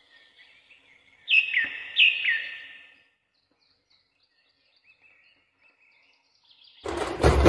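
Bird calls. There are two loud calls that slide down in pitch, about a second in and again half a second later, then a few faint chirps. A much louder, fuller sound comes in near the end.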